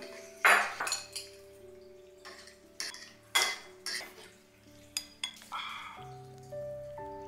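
Forks and chopsticks clinking and scraping against plates while eating, a scattering of sharp clinks, the loudest about half a second in.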